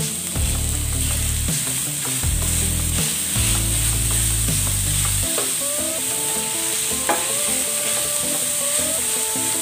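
Minced beef and onion sizzling in a nonstick frying pan while a nylon spatula stirs and scrapes through it, with a few light clicks of the spatula on the pan. Held tones change in steps behind it, low in the first half and higher from about halfway.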